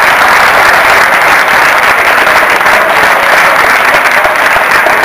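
Loud, steady applause from a crowd.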